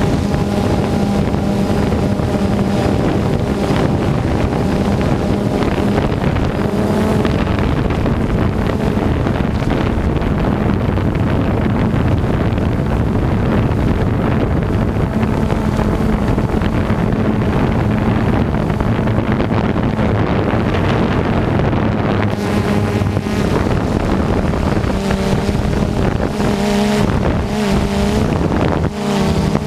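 Heavy harvest machinery running steadily: a continuous engine drone with wind noise on the microphone. The engine note wavers a little in the last few seconds.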